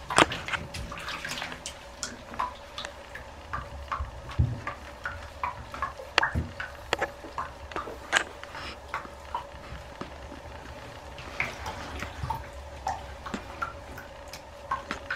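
Shallow bathwater splashing and sloshing in a tub as a small dog is lathered and rubbed by hand, with many short irregular splashes and drips over a steady faint hum.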